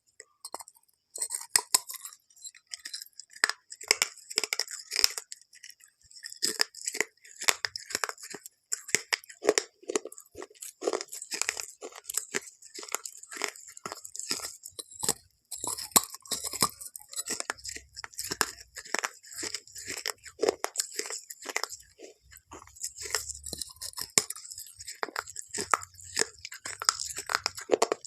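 Close-up crunching and chewing of crunchy food: a dense run of sharp crackles and clicks, several a second, with short pauses between mouthfuls.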